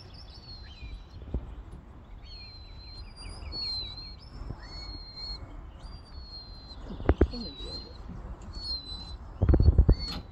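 Wind buffeting the microphone in short low rumbling blasts, one about seven seconds in and a longer one near the end, over a steady run of thin high whistles and chirps.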